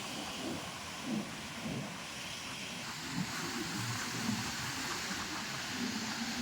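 Steady rush of wind and surf, with irregular low buffeting of wind on the microphone.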